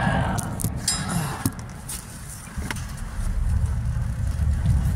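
Low, rough rumble of a phone microphone being moved and rubbed about, with a few sharp clicks and knocks.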